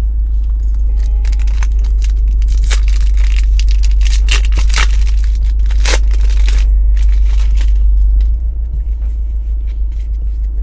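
Crinkling and crackling of plastic snack packaging being handled and torn, thickest in the middle of the stretch, over a steady low rumble that drops off about two seconds before the end.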